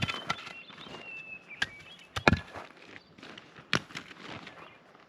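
Several sharp, irregular knocks and clacks of camping gear being handled and set down.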